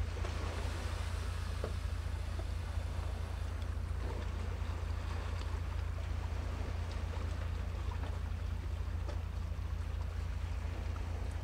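Steady low rumble of wind on the microphone over an even hiss of wind and sea, with a few faint ticks.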